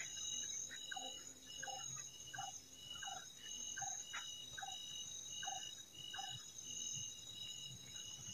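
Night-time insect chorus in forest, faint: steady high trills with a short chirp repeating about twice a second, and short lower pips scattered in between.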